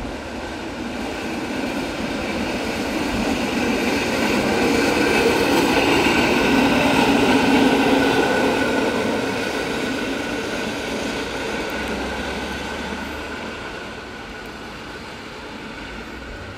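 Small motorised rail track-inspection car (rot tok) running past on the rails: its engine and wheel noise swells to a peak about six to eight seconds in, then fades as it moves away.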